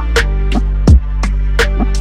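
Background music with a steady beat: punchy drum hits with deep thumps over sustained bass notes.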